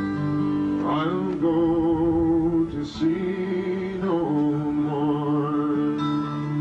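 Live folk music: a man singing a slow ballad over acoustic guitar, holding long notes with a slight waver.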